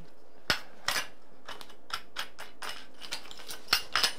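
Irregular metallic clicks and clinks from an aluminium pole sander head being handled as its wing-nut clamps are loosened and the worn sanding screen is taken off. The sharpest clicks come about half a second in and again near the end.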